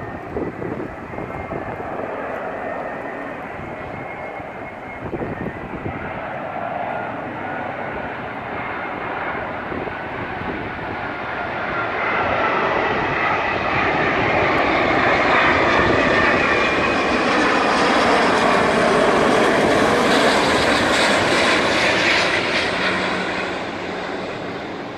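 Airbus A350-900 airliner on final approach, its two Rolls-Royce Trent XWB turbofans running at approach power: a steady jet rumble with a faint whine that swells about twelve seconds in, is loudest as the plane comes close, and eases slightly near the end.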